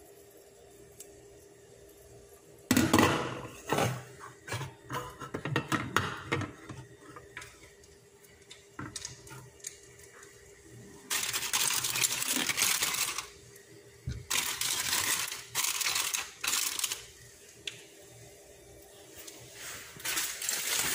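Kitchen handling sounds: a few seconds of clattering dishes, then two longer spells of rustling, crinkling plastic wrap, over a faint steady hum.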